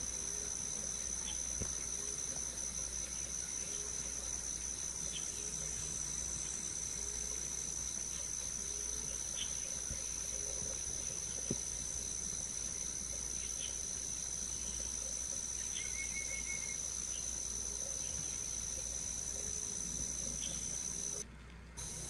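Steady high-pitched insect drone, with faint short low calls repeating about every second and a half and a brief trill about two-thirds of the way in. The sound cuts out for about half a second near the end.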